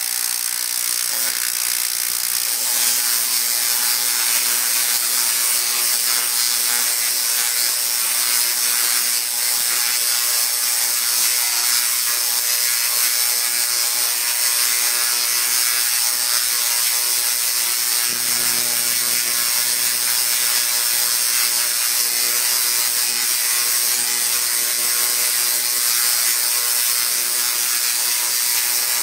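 A Tesla coil firing continuously, its streamer arcs making a loud, steady, harsh crackling buzz over a low hum.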